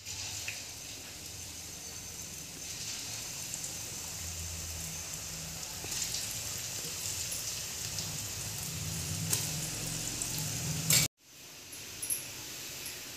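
Rice-flour chakli deep-frying in hot oil: a steady, crackling sizzle of bubbling oil that starts at once and cuts off abruptly about eleven seconds in.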